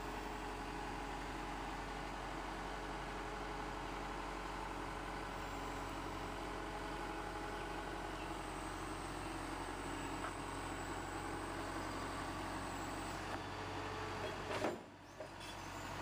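Skid-steer loader's diesel engine running steadily while it carries and lifts slabs of broken asphalt into a dump truck. Near the end there is a sharp click, and the sound briefly drops away.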